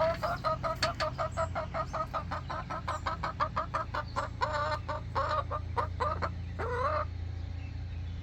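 Domestic hen cackling: a fast run of short clucks, about four a second, with a few longer drawn-out calls mixed in, stopping about seven seconds in. A steady low hum runs underneath.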